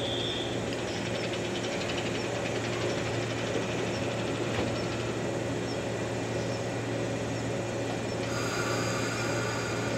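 A stationary electric commuter train's onboard equipment humming steadily. A higher steady whine joins about eight seconds in.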